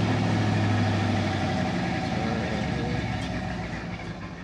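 1983 Chevy C10's 305 V8 with Flowmaster exhaust idling on a cold start, then losing strength from about two seconds in and dying out near the end: the engine stalls, not having been run for five days.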